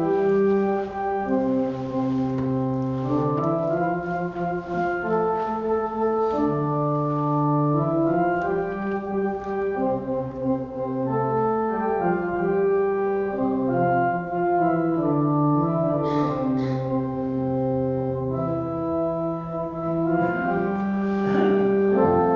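Church organ playing slow music in sustained chords, the notes changing every second or so over a moving bass line.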